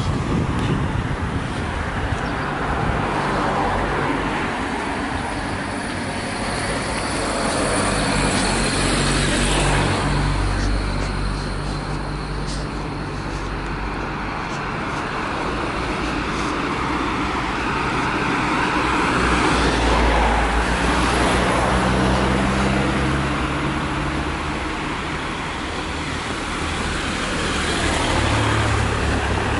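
Road traffic: cars driving past on the street, their engine and tyre noise swelling and fading as each passes, with the loudest passes about ten seconds in, twenty seconds in and near the end.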